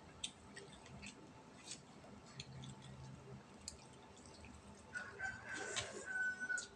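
A rooster crowing, one long drawn-out call that starts about five seconds in and holds a steady pitch until near the end. Before it come scattered faint clicks of eating at the table.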